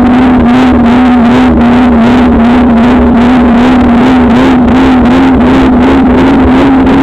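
Riding noise of a bicycle picked up by a bike-mounted action camera: a loud, steady hum that wavers slightly in pitch, over a rough rattle from riding on asphalt.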